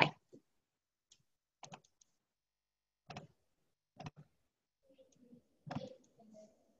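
A few faint, short computer clicks, about a second apart, as a slide show is clicked through to its end.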